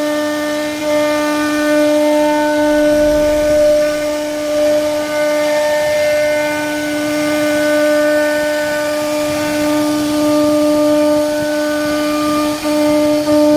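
CNC router spindle carving a wooden door panel: a steady high whine at one pitch, swelling and easing slightly in loudness as the bit cuts the wood.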